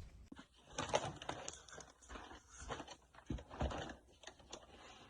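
Irregular rustling and crinkling of paper and packaging being handled.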